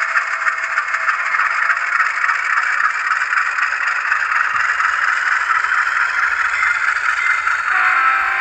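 Model diesel locomotive's sound decoder playing the prime-mover start-up and running sound through the model's small speaker, heard as a steady rattling engine noise. Near the end, a horn with several tones begins to sound.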